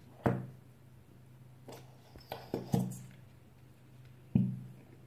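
White glue squeezed from a plastic squeeze bottle into a glass bowl: about five short, sharp sounds, three in quick succession near the middle, over a faint steady hum.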